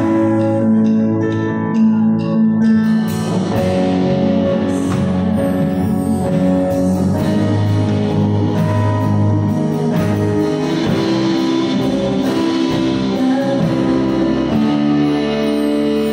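Live band playing a song on electric guitars, bass guitar and keyboard; drums with cymbals come in about three seconds in and keep going.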